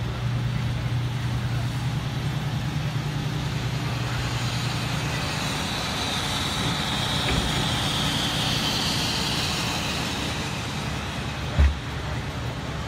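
Parked trucks idling: a steady low engine hum, strongest at first and fading as it is left behind, with a single thump near the end.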